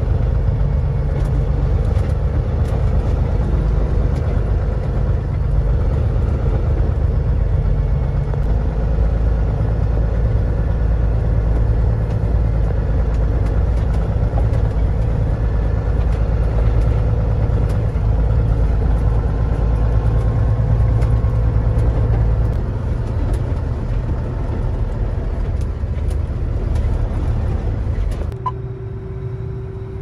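Farm tractor engine running steadily under way, heard from inside the cab as a loud low drone with rattle. About two seconds before the end it gives way to a quieter, steady hum with one constant tone, from inside an idling combine's cab.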